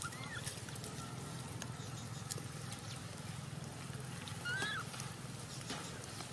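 Faint rustling and ticking of dry leaf litter and twigs as a newborn macaque crawls over them, over a steady low hum. Two faint short squeaks sound, one just after the start and one about four and a half seconds in.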